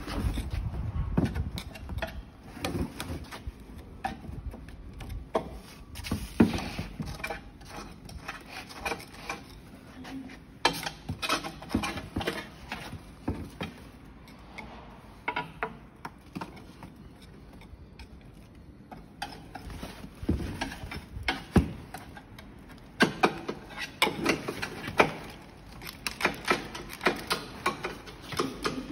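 Hand tool scraping and chipping caked, rusty flour residue off the steel housing of a Buhler roller mill, the debris dropping into a plastic bin: irregular scrapes, clicks and knocks, sparser for several seconds about halfway through.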